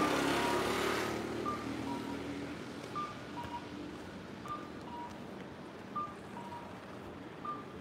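Japanese audible pedestrian crossing signal sounding while the walk light is green: a short two-note electronic chime, a higher note then a lower one, repeating about every second and a half over faint traffic hiss. This is the cuckoo-style pattern used at crossings to tell blind pedestrians it is safe to cross.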